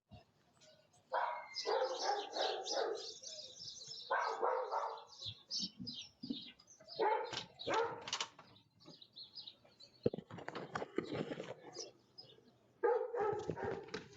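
A dog barking in several bouts of rapid barks, each lasting a second or two, with short silent gaps between them.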